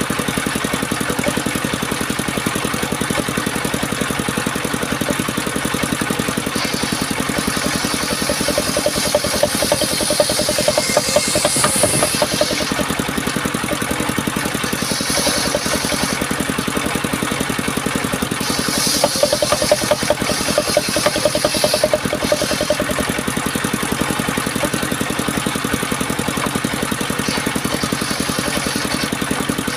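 Homemade circular saw rig running steadily, with several passes of the blade cutting through wood. The louder, buzzier cuts come about ten seconds in and again around twenty seconds.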